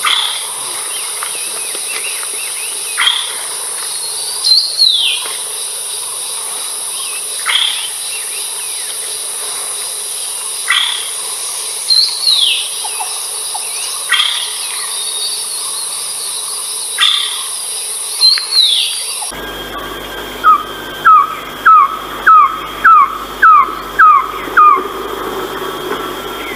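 Philippine trogon calls from two spliced recordings. In the first, single calls sweep downward every few seconds over a steady high insect drone. After a cut about 19 seconds in, a run of about nine short descending notes follows, roughly two a second.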